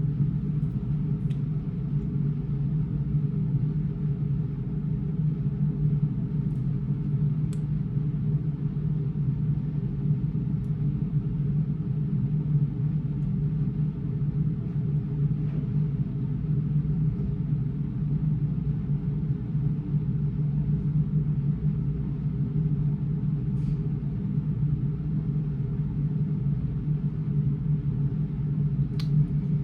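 Steady low rumble and hum of a car in motion, heard from inside the cabin.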